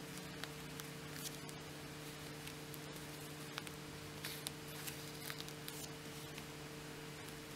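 Faint rustling of cotton fabric and scattered small ticks as a needle and thread are pushed and pulled through gathered cloth in hand sewing, over a steady low electrical hum.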